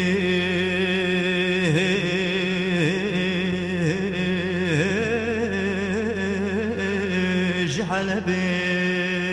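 A male voice holds one long sung note in a Kurdish folk song, steady in pitch with quick ornamental dips and a slight waver, over a low steady hum.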